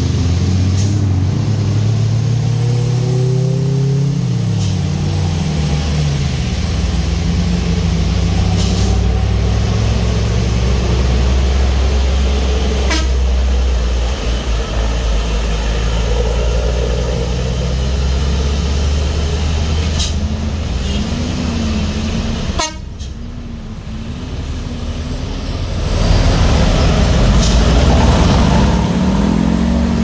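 Heavy truck engines running under load on a steep hairpin climb, a loud low drone. The engine note drops a few seconds in, and the sound gets louder near the end.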